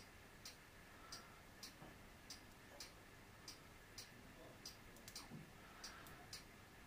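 Near silence with faint, regular ticking, a little under two ticks a second.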